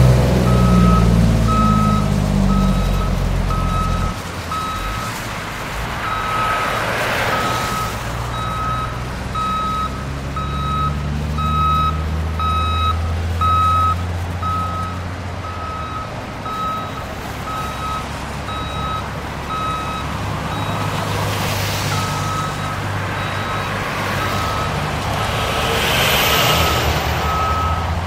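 Heavy equipment's backup alarm beeping steadily at one pitch, a little more than once a second, over the low hum of a diesel engine and passing road traffic.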